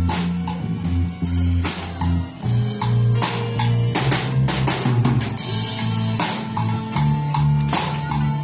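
Pop backing track with a drum kit, bass and guitar playing at a steady beat.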